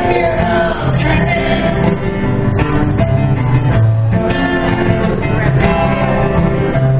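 Live music: a man singing with guitar accompaniment.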